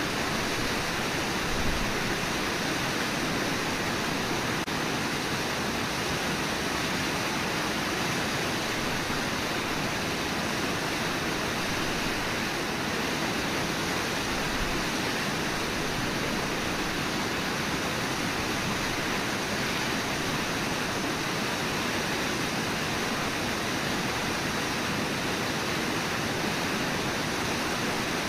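Brooks Falls, the waterfall on the Brooks River, rushing with a steady, unbroken roar of falling water.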